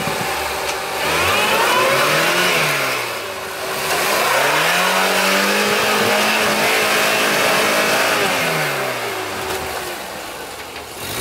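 Lada Niva's engine revving hard while stuck nose-first in deep mud and trying to reverse out. The revs climb, dip briefly about three seconds in, climb again and hold high, then fall away near the end.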